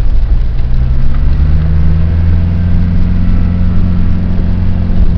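Four-wheel-drive vehicle's engine running steadily at low revs. Its pitch rises slightly about a second and a half in, then holds.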